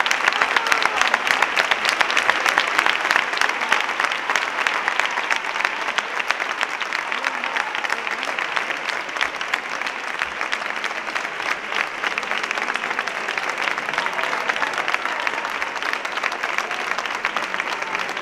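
A large crowd applauding steadily: a dense crackle of many hands clapping, a little louder in the first few seconds, with voices mixed in.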